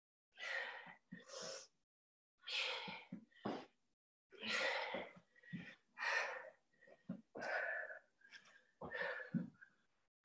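A woman breathing hard from exertion during lunges: short, forceful huffing breaths about once a second.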